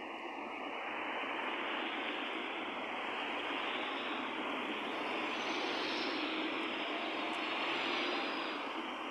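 Road traffic: cars passing on a wet road, a steady rush of tyre and engine noise that swells toward the end and then eases.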